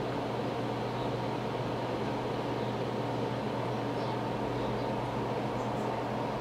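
Electric fan running steadily: an even whir with a low, constant hum.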